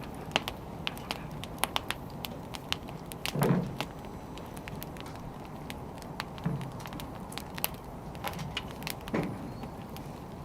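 Wood fire burning: firewood crackling with irregular sharp pops over a low steady rumble, and a louder, fuller pop about three and a half seconds in.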